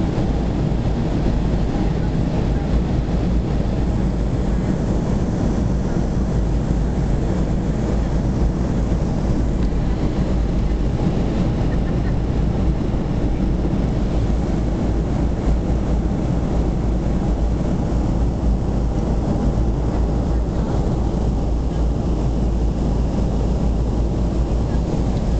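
Steady cabin noise inside a Boeing 737-300 on its approach: the drone of the CFM56-3 engines and the rush of airflow past the fuselage, even and unchanging.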